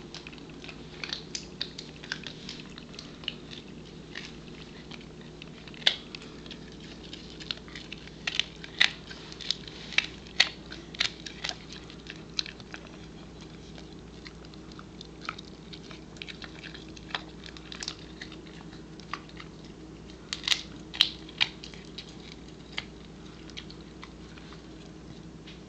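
Pembroke Welsh Corgi gnawing a dried Angus beef Achilles tendon chew: irregular sharp crunching and cracking clicks as her teeth work the hard tendon, coming in clusters, busiest in the middle and again a few seconds before the end, over a faint steady hum.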